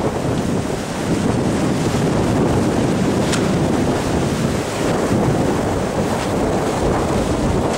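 Steady wind buffeting the microphone over the rush of water along the hull of a sailboat running downwind under spinnaker.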